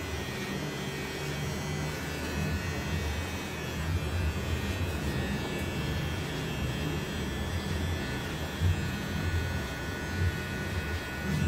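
Electric hair clipper running steadily as it cuts a man's hair over a comb, a continuous motor buzz with a couple of brief louder moments near the end.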